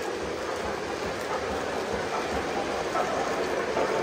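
Lionel model train running along its track, a steady rumble that grows louder toward the end.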